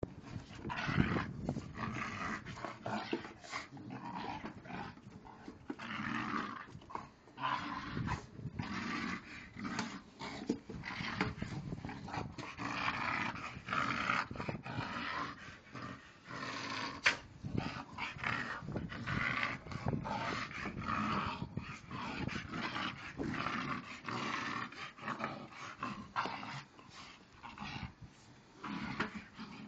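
Staffordshire Bull Terrier growling in play while worrying a tyre, with many short knocks and scrapes mixed in.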